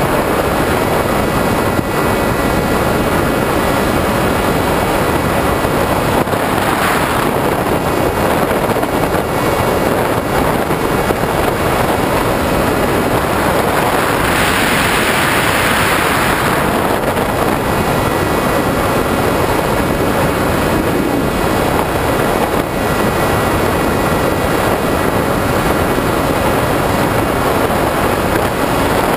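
EPP-foam FPV model plane in flight, heard through its onboard GoPro: a loud, steady rush of air and propeller noise with a faint motor whine underneath. The rush swells higher for a couple of seconds about midway.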